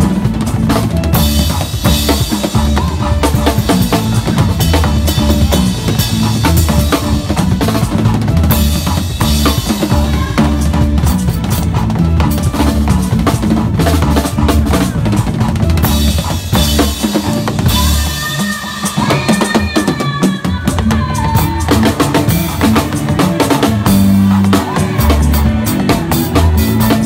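Acoustic drum kit played very fast in a solo: rapid snare and tom strokes over a quick, driving bass drum, with cymbal hits. The bass drum lets up briefly about two-thirds of the way through.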